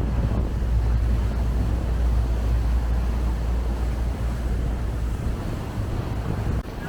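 Wind buffeting the microphone aboard a moving boat, over the steady noise of the engine and rushing water. The low rumble eases about five seconds in.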